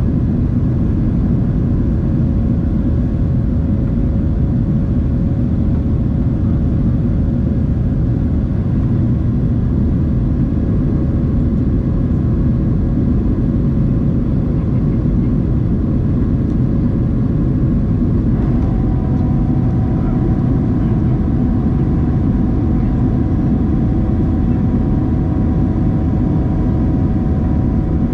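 Steady cabin noise of a Boeing 737-700 with its CFM56-7B jet engines running, a deep rumble with a steady hum. About eighteen seconds in, higher steady tones join the hum, a change in the engines' pitch.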